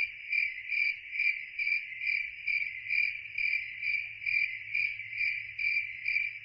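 Cricket chirping at night: a steady, high, pulsing trill, about two and a half pulses a second.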